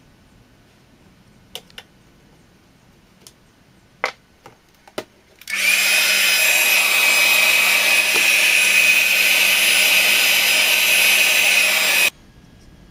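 Hair dryer switched on about five seconds in to dry a wet watercolour wash, running steadily with a high whine over a low hum, then switched off suddenly near the end. A few light clicks and knocks come before it starts.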